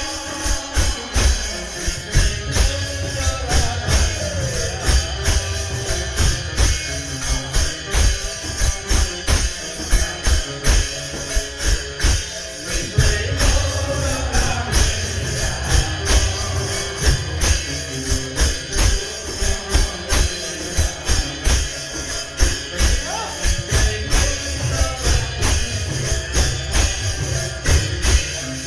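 Devotional kirtan group music: a fast, steady beat of jingling hand percussion over drum beats, with pitched melodic lines running through it.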